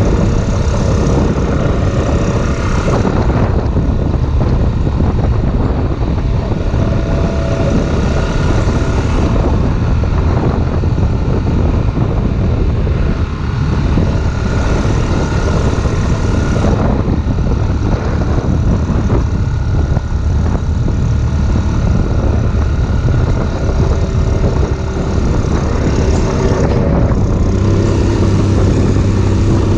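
Off-road vehicle engine running under way, a steady loud drone, with wind noise on the microphone.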